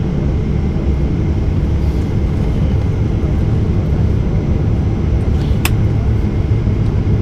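Boeing 737-800's CFM56-7B jet engines idling, heard inside the cabin as a steady low rumble. A single sharp click sounds about five and a half seconds in.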